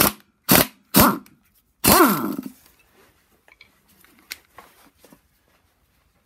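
Impact wrench hammering on a crankshaft pulley bolt to loosen it: three short bursts, then a longer run about two seconds in whose pitch falls as it winds down. Light clicks and knocks of tools follow.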